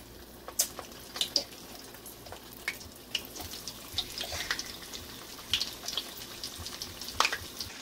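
Flour-coated chicken pieces deep-frying in hot oil: a steady sizzle broken by irregular sharp crackles and pops, with one louder pop near the end.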